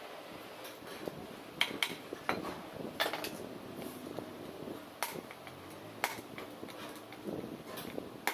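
Hammer striking a punch against the universal-joint (cross joint) yoke of a Toyota Innova propeller shaft: about seven sharp metallic taps, irregularly spaced, during a cross-joint replacement.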